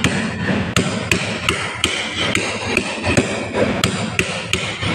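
Steady series of hammer blows on metal, about two to three a second, each with a short metallic ring, as a part of the purifier is knocked loose during disassembly.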